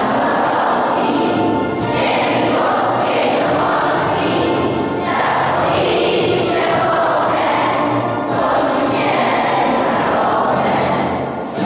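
A large group of schoolchildren and teachers singing an anthem together as a choir, in phrases with short breaks about every three seconds.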